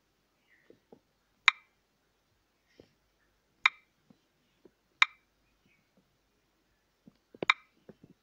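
Four sharp clicks, a second or more apart, one for each key pressed while typing a class code on a phone's on-screen keyboard, with a few faint softer ticks between them.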